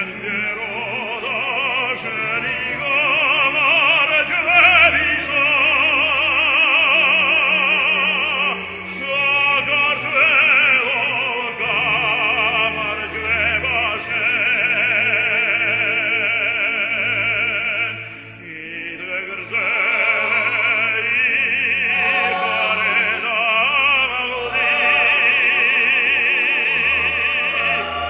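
A male operatic voice sings a song with a wide vibrato over classical instrumental accompaniment. There is a brief break between phrases about eighteen seconds in.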